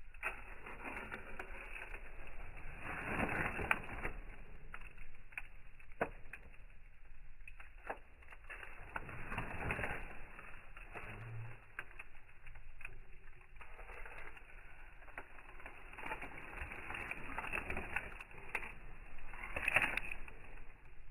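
Wood campfire crackling, with irregular sharp pops and snaps over a rushing hiss that swells and fades.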